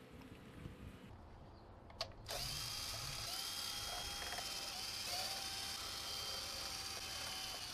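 DeWalt cordless drill/driver spinning a socket to back out the valve cover bolts. It starts with a click about two seconds in and runs steadily after that, its pitch dipping briefly a few times.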